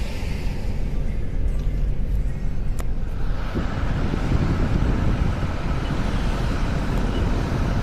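Car driving on a paved road, heard from inside the cabin: a steady engine and tyre rumble, with the road hiss growing fuller about three seconds in. A single sharp click comes just before that.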